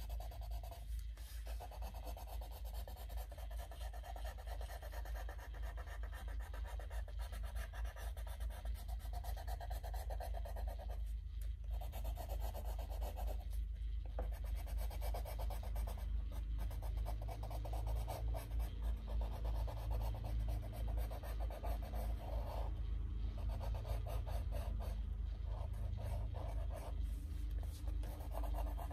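Pencil tracing firmly back and forth over a cardstock template laid on a stretched canvas, a rasping scratch in strokes broken by short pauses, over a steady low hum.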